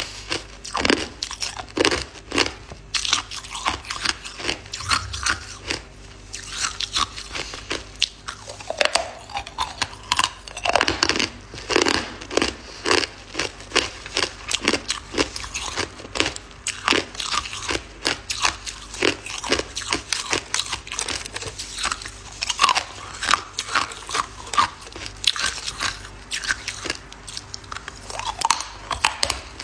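Hard round balloon ice being bitten and chewed in the mouth: a dense, irregular run of sharp crunches and cracks that goes on without a break.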